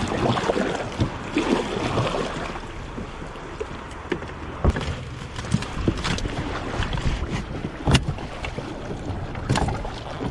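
Kayak being paddled: water sloshing and splashing against the hull, with a few sharp knocks, the loudest about eight seconds in.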